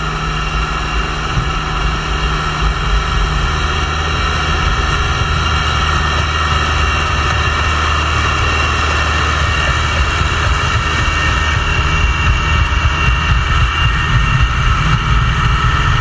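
East Wind YCT365S-S mini crawler dozer running loud and steady while pushing soil and rock and driving past close by, a steady whine riding over the engine note.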